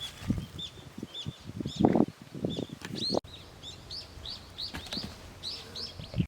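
A small bird chirping over and over, short rising-and-falling notes about twice a second. Low knocks and rustles sound underneath, loudest about two seconds in.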